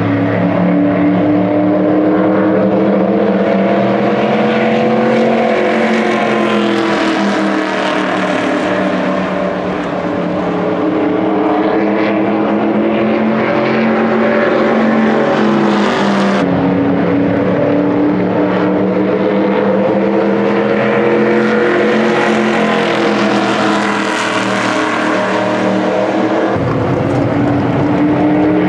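Stock cars' V8 engines running at speed around the oval track, the pitch swelling and falling as the cars come round and pass.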